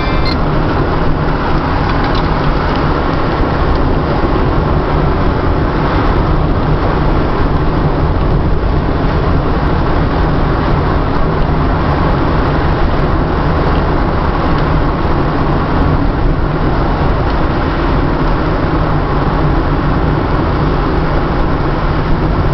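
Steady road noise of a car driving along a highway: an even, deep rumble of tyres and engine that stays unchanged throughout.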